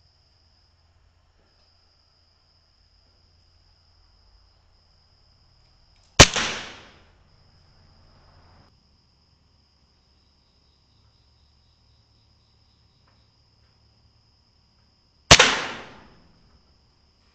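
Two air rifle shots about nine seconds apart, each a sharp crack that dies away within a second.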